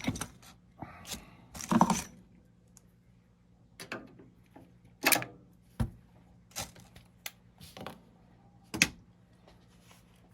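Scattered clicks, knocks and clatters from handling the plastic housing parts and screws of a nugget ice maker during disassembly, the loudest about two, five and nine seconds in.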